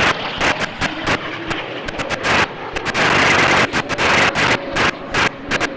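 Jet noise from L-39 Albatros jets flying overhead, a rushing roar that swells in the middle with a faint tone slowly falling. Broken throughout by a rapid, irregular run of sharp crackling pops.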